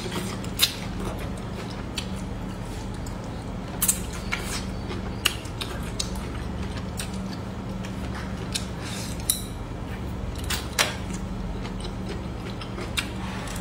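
Close-miked eating of stir-fried green beans: scattered sharp crunches and clicks as the beans are bitten and chewed, with light chopstick taps, over a steady low hum.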